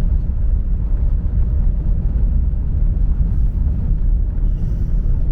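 Car being driven on the road, heard from inside the cabin: a steady low rumble of engine and road noise.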